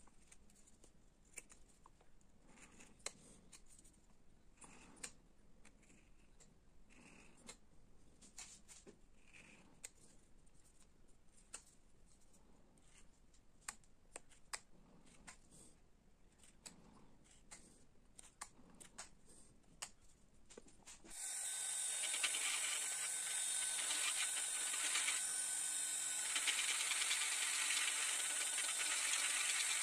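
Faint scraping and small clicks of a hand carving tool cutting fine detail in linden wood. About 21 seconds in, a handheld rotary tool with a fine burr starts with a steady high whine and keeps running as it grinds into the wood.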